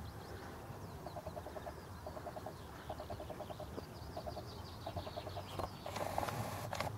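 Faint clucking, like a hen's, in short quick runs of notes, about six times. Small birds chirp faintly above it.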